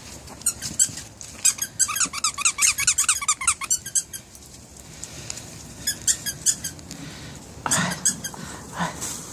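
Squeaky dog toy squeaking in quick repeated runs as a puppy chews it: a dense run over the first four seconds, another shorter run around six seconds in, and a brief noisy sound near the end.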